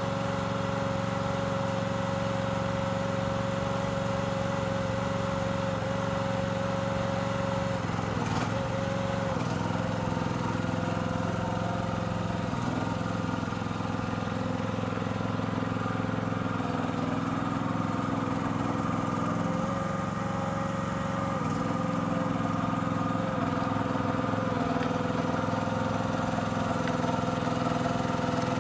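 Engine of a FORT Alien HY 5.2 hydraulic tracked mini dumper running steadily as the machine crawls and works in mud, with a steady whine over the engine note that dips briefly twice. A single click about eight seconds in, and the engine gets a little louder in the last few seconds.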